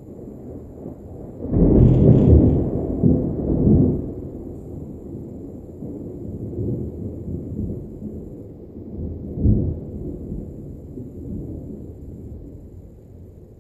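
Thunder: a sudden loud crack about a second and a half in, rolling on as a heavy rumble for a couple of seconds and then fading slowly, with a second swell of rumble later on.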